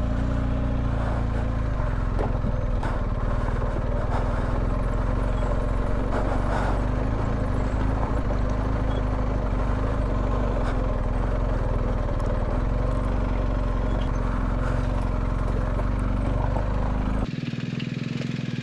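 BMW R1250GS boxer-twin engine running steadily under a rider on a dirt track, with a few scattered clicks. Near the end the sound drops abruptly to a lower, duller level.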